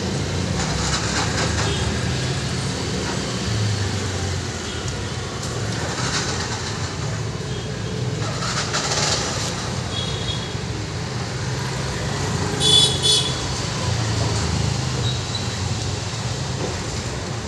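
Background road traffic with a low rumble of passing vehicles. Two short vehicle horn toots come about thirteen seconds in.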